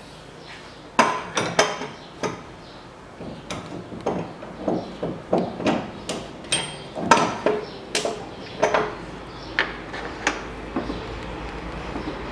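Irregular sharp metal knocks and clinks of hand tools and bolts against an air-conditioning compressor and its mounting as it is fitted in the engine bay. The strikes come loosely about two a second through the middle and thin out near the end.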